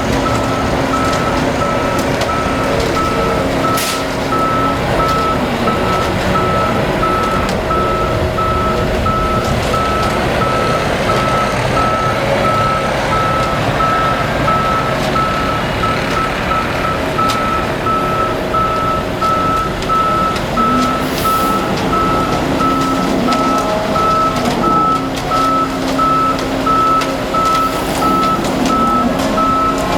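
Truck reverse alarm beeping at an even pace, over the truck's running engine; the engine's pitch drops about five seconds in and rises again around twenty-one seconds, as the revs change.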